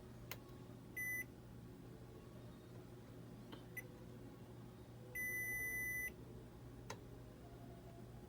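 Digital multimeter's continuity buzzer beeping twice, one high steady tone: a short beep about a second in and a longer beep of about a second a little past halfway, with a few faint clicks between over a low steady hum.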